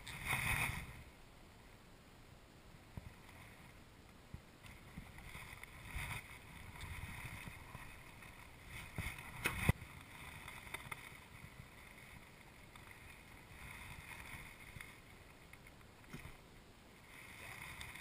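Wooden beehive parts being handled as the hive is opened and a frame is lifted out: scattered knocks, scrapes and rustles, with one sharp knock about ten seconds in.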